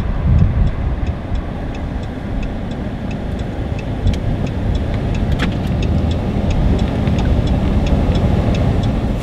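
Car driving on a paved road, heard from inside the cabin: a steady low rumble of road and engine noise. A light, regular ticking runs over it.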